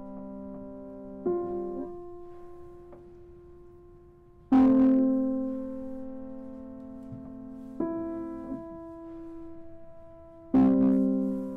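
Grand piano playing slow, sparse chords: four chords about three seconds apart, the second and fourth struck loudly, each left to ring and fade.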